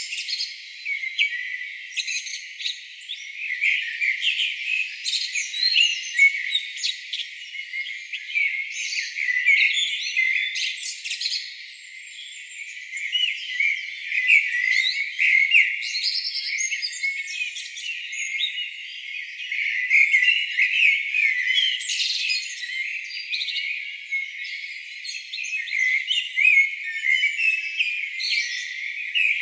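Dense chorus of many songbirds singing at once, a steady overlap of short high chirps and trills. The sound is thin, with everything below the birds' pitch filtered out.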